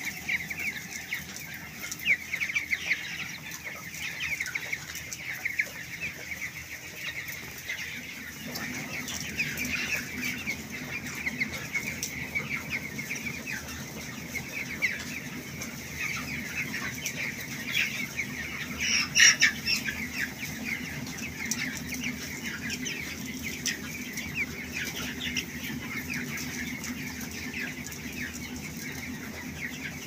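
A flock of broiler chickens about three weeks old, cheeping and peeping without a break, with one louder squawk about two-thirds of the way through. A low steady hum comes in about a quarter of the way through.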